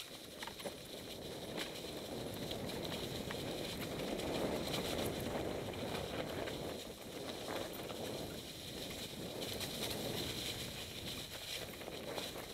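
Mountain bike tyres rolling over dry fallen leaves and forest floor: a continuous rustle that swells and eases, with scattered clicks and rattles from the bike.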